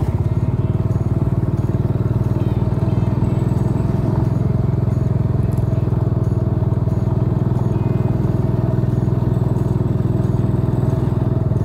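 Car engine running steadily while driving, with road noise.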